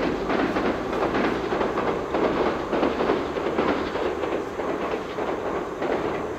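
Electric train of the Toyama Chiho Railway main line running past at close range, its wheels clattering rapidly over the rail joints in a steady, continuous rumble.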